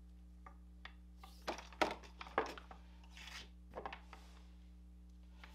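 Soft rubbing and light knocks as a test light's rubber-jacketed cable is handled and moved about on a workbench, with a faint steady hum underneath.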